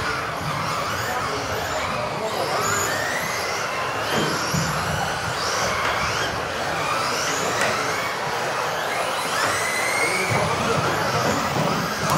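Several 1:10 electric RC off-road buggies racing together. Their motors whine up and down in pitch as the cars accelerate and brake, over a steady noise.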